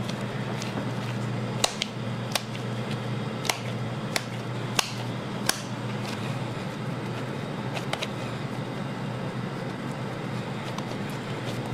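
Steady hum of kitchen machinery, with a scattering of short sharp pats and clicks as gloved hands squeeze and pat raw ground beef into a ball for a patty.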